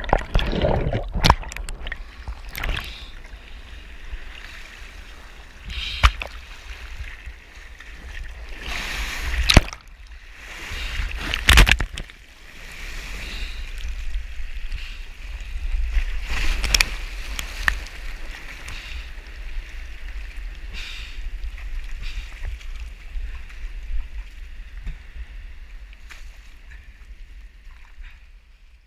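Sea water sloshing and splashing around a camera at the waterline, as small waves wash over it. There is a steady low rumble, and three sharp, loud splashes come in the first half.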